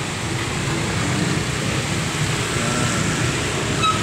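Street traffic on a rain-wet road: motorcycle tricycles and a car passing close, over a steady hiss.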